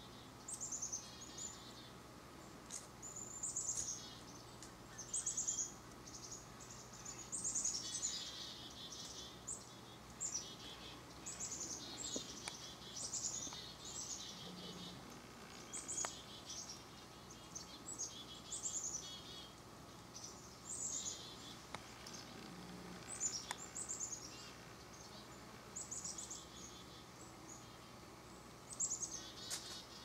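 A foraging flock of black-capped chickadees and red-breasted nuthatches calling: repeated high chick-a-dee-dee call series, each a sharp high note followed by a few lower, buzzier notes, coming every second or two.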